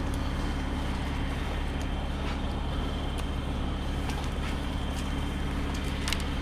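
Diesel engine of a mobile crane running steadily at a constant pitch, with a few faint ticks over it.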